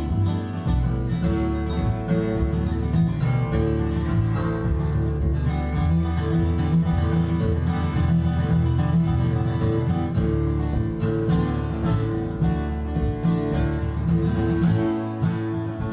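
Instrumental break in an acoustic folk song: acoustic guitar picked and strummed steadily, with no singing.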